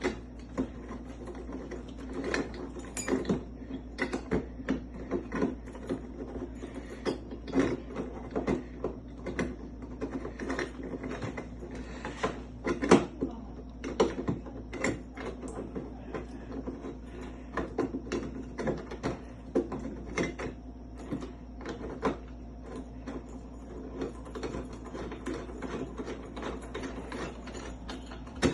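Irregular metallic clicks and clacks of a mortise lock and its parts being handled and worked on, several a second, over a steady low hum.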